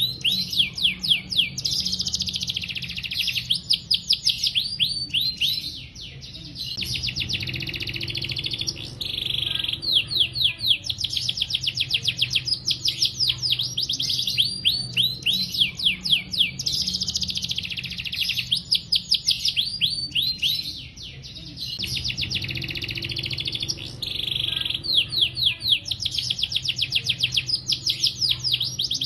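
Male domestic canary singing long, fast rolling trills of rapidly repeated high notes, phrase after phrase, with brief breaks every several seconds. A steady low hum runs underneath.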